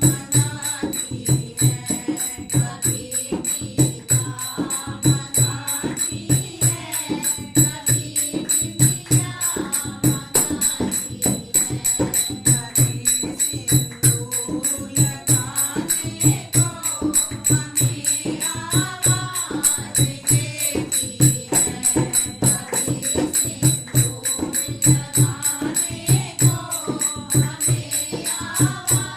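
Devotional bhajan music: a steady drum beat with tambourine jingles under a gliding melody, with no clear lyrics sung.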